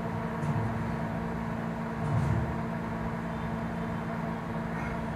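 A steady low hum with a few even tones, broken by soft low bumps about half a second and two seconds in.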